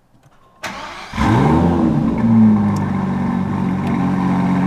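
Aston Martin DB11 AMR's 5.2-litre twin-turbo V12 being started with the push button: a brief starter whir, then the engine catches about a second in with a rev flare that rises and falls, and settles into a steady idle.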